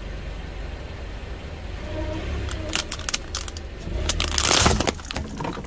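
A car tyre presses down on a bundle of liquid-filled plastic syringes, with the car's low rumble underneath. Scattered cracks and snaps of plastic start about three seconds in, then build to a dense burst of cracking plastic a little after four seconds.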